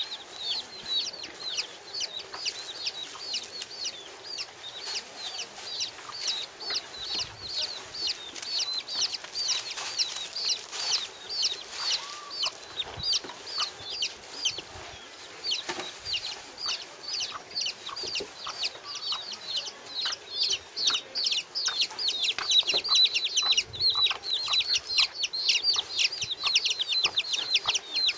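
Domestic chicks peeping continuously, many short high-pitched cheeps a second, growing louder over the last several seconds.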